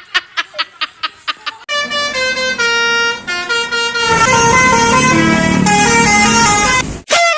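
Basuri telolet bus horn playing a tune: several steady tones sounding together, stepping from note to note for about five seconds.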